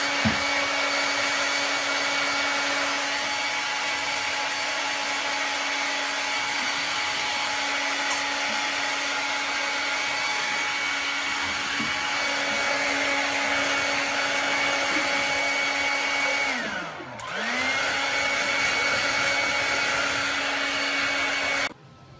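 An electric motor appliance runs steadily with a hum and a hiss. About 17 seconds in it is switched off and straight back on, and its pitch slides down and back up. The sound cuts off abruptly near the end.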